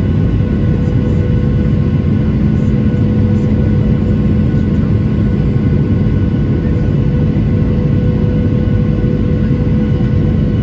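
Steady cabin noise inside a Boeing 737-900ER: a deep rumble of engines and airflow with several steady humming tones on top, unchanging throughout.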